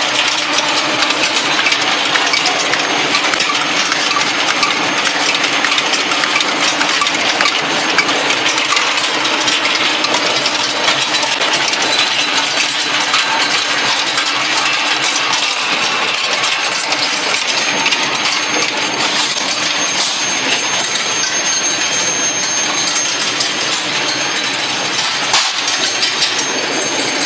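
Steel ball hot skew rolling mill running, making a loud, steady, dense clatter of many small clicks over a faint steady hum.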